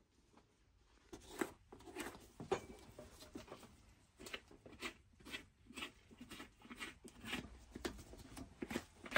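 Shoemaker's knife cutting into a boot's worn rubber sole at the heel: a run of short, irregular crunching and scraping strokes, starting about a second in.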